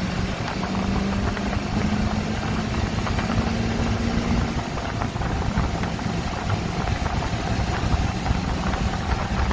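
Chevrolet pickup truck's engine and road noise heard from inside the cab while driving, a dense low rumble with a steady drone that fades out about halfway through.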